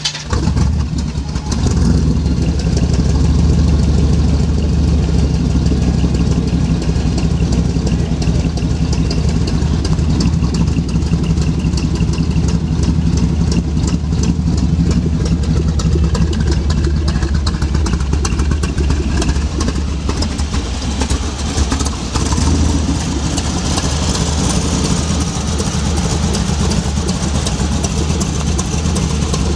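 350 Chevrolet V8 with a tunnel-ram intake and two carburettors, idling steadily in the 1976 AMC Gremlin X it powers.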